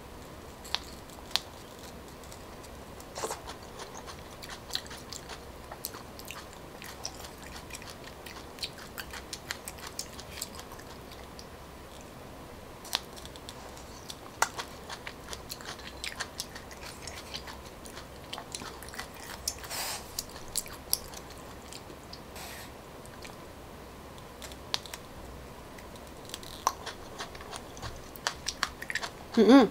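Close-up chewing of raw coconut palm weevil larvae (đuông dừa) dipped in fish sauce, with wet mouth sounds and scattered sharp clicks. A brief louder sound comes just before the end.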